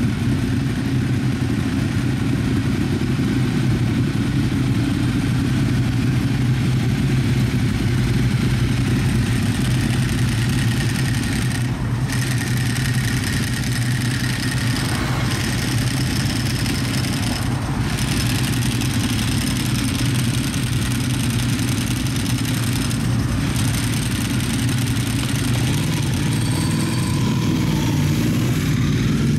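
Several Ducati motorcycles' V-twin engines idling together in a steady low rumble, with one bike pulling away near the end.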